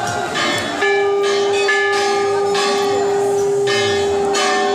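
Bells ringing, clanging over and over. About a second in, a steady tone joins them and holds at an even level.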